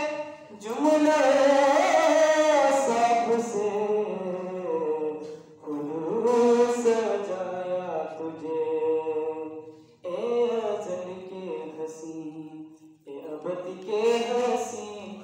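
A young man chanting a naat, an Urdu devotional poem in praise of the Prophet Muhammad, unaccompanied, in four long melodic phrases with brief pauses for breath between them.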